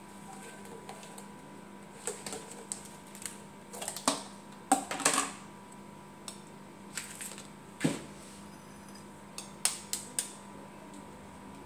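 Irregular light clicks and knocks, a dozen or so scattered unevenly, like small objects being handled, over a faint steady hum.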